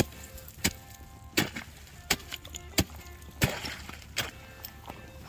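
An ice chisel (spud bar) chopping through clear lake ice, striking about once every 0.7 s, each blow a sharp crack, with a short spray of ice chips after one strike about three and a half seconds in.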